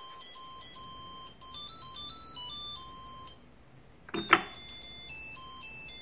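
Arduino-driven busy box playing a simple electronic beeping melody through its small speaker, one pure tone stepping from note to note. The tune stops after about three seconds, a button click follows about a second later, and a different beeping tune starts.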